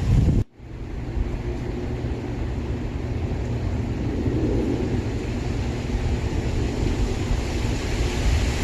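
Strong gusting wind, with wind buffeting the microphone as a heavy low rumble. The sound cuts out abruptly about half a second in and returns a moment later.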